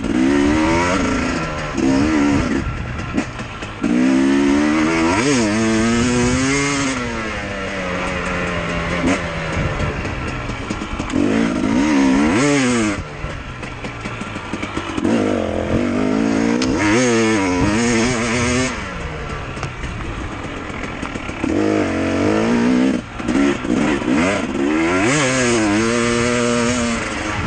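KTM dirt bike's engine under way, revving up and falling back over and over as the rider works the throttle and gears, in about seven surges.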